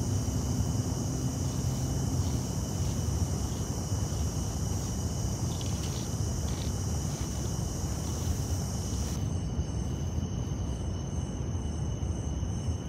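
Night insects such as crickets calling steadily in two high-pitched tones over a steady low rumble.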